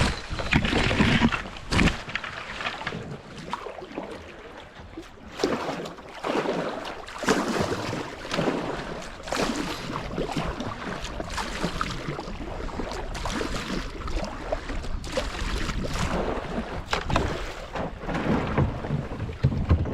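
Kayak paddling down a shallow creek: irregular splashes of the paddle and rushing water around the hull, with some wind buffeting the microphone.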